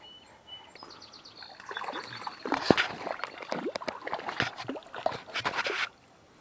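A hooked trout splashing at the water's surface as it is reeled in: a run of loud, irregular splashes lasting about four seconds that stops abruptly near the end.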